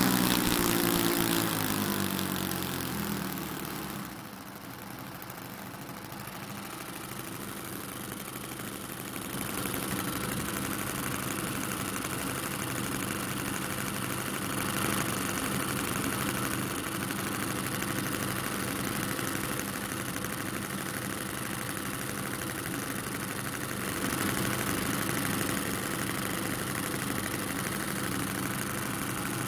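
Two OS Max FS40 Surpass four-stroke glow engines on a twin-engine RC model plane, throttled back from high revs. Their pitch and loudness fall over the first few seconds, then they idle steadily, a little louder from about ten seconds in.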